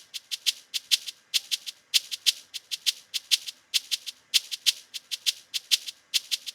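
Programmed afrobeat shaker loop playing back on its own without the kick: a steady, syncopated pattern of short, crisp shaker hits in quick groups.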